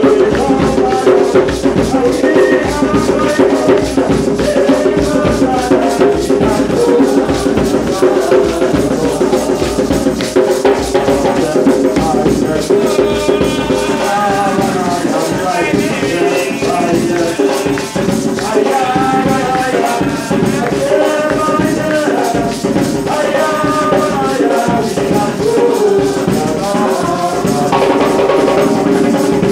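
A congregation singing a hymn together, with shaken percussion and a hand drum keeping a steady rhythm.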